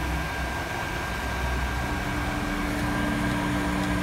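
Electric heat gun running steadily, its fan blowing hot air onto heat-shrink tubing over the motor's lead wires, with a steady whine from its fan motor.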